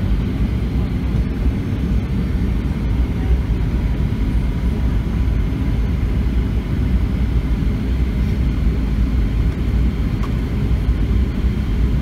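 Steady low rumble of airflow and CFM56-7B turbofan engines heard inside the cabin of a Boeing 737-700 on its descent to land, with a faint steady whine above it.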